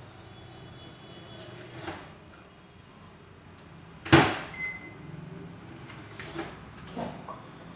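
A few light knocks and one loud thump, like a door being shut, about four seconds in, followed by a brief high steady tone.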